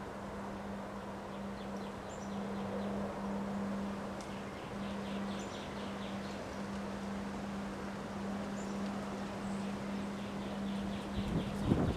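Outdoor ambience during a windstorm: a steady rush of wind with small birds chirping and trilling now and then over a constant low hum. Near the end, a strong gust buffets the microphone.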